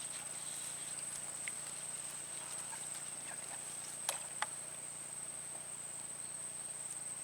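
Steady high-pitched drone of insects, crickets or cicadas, with two short sharp clicks about four seconds in.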